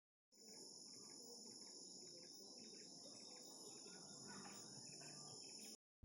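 Faint forest insect chorus, crickets or cicadas: a steady high-pitched buzz with a softer chirp repeating about twice a second. It fades in just after the start and cuts off just before the end.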